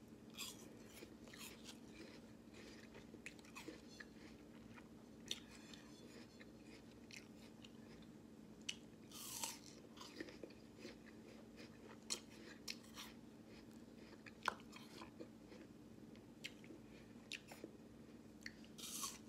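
Raw apple being bitten and chewed close to the microphone: faint, irregular crunching and wet chewing, with a couple of louder crunches about halfway through and near the end. A steady low hum runs underneath.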